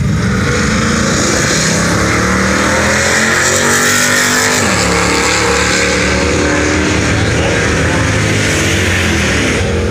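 Holden Torana's 304 V8 and a second car at full throttle on a drag-strip pass. The engines climb in pitch, drop briefly about halfway through, then climb again as the cars run past and away.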